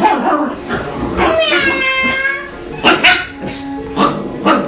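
Bichon Frise puppy whining and barking: a long drawn-out whine about a second and a half in, then a few sharp yaps in the second half.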